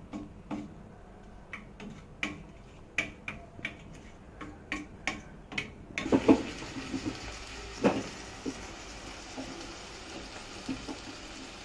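Wooden spatula tapping and scraping against a stainless steel pan, a quick run of sharp clicks. About six seconds in, a steady sizzling hiss of onions frying in hot oil begins, with a couple of louder knocks of the spatula on the pan.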